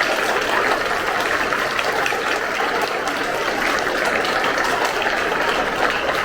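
A large audience clapping in sustained, steady applause.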